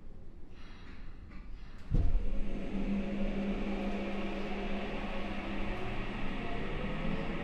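Saitama Railway 2000 series train's Mitsubishi IGBT VVVF inverter and traction motors powering up with a sudden jump in level about two seconds in. A steady hum with a whine follows, and its tones begin to rise in pitch near the end as the train gathers speed.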